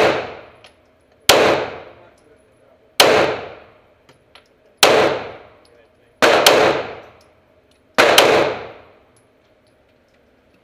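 An FN FNX-9 9mm pistol firing six shots, about one every second and a half with a quick double in the middle, each crack ringing out in the reverberant indoor range.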